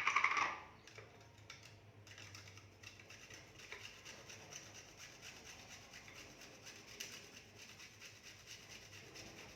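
A cashew nut being rubbed over a small hand grater: a steady run of fine, quick scraping strokes, after a brief louder noise right at the start.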